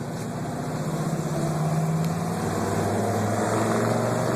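Car engine being revved through its exhaust, building up over the first second or so and then held at high revs.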